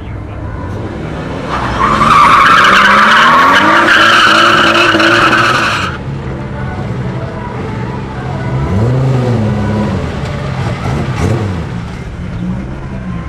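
Toyota Supra doing a drag-strip burnout: the tyres squeal loudly for about four seconds and cut off suddenly. A few seconds later the engine revs up and down a couple of times over a steady idle.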